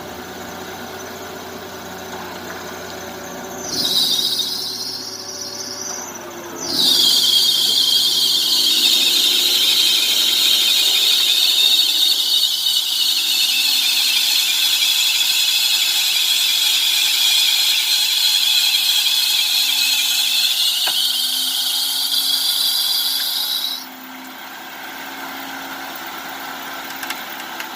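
A loud, high-pitched mechanical squeal from an off-road 4x4, brief about four seconds in, then held for about seventeen seconds, sagging in pitch midway and climbing back before cutting off sharply, over a steadily running engine.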